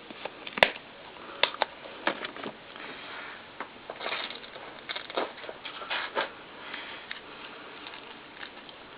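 Small objects being handled and set down on a hard surface: scattered light clicks and taps, the sharpest about half a second in, with soft rustling of gear in between.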